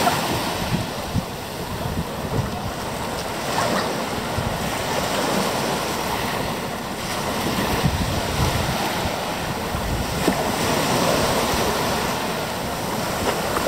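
Surf washing on a beach, with wind buffeting the microphone in uneven low gusts.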